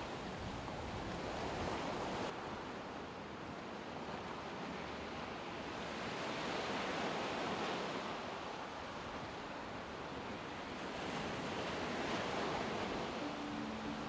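Small sea waves washing onto a sand-and-pebble beach. The surf swells and eases about three times, every four to five seconds.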